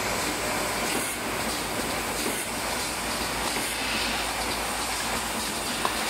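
Automatic can-seaming machine and its conveyor line running steadily, a continuous mechanical clatter, with one sharp click near the end.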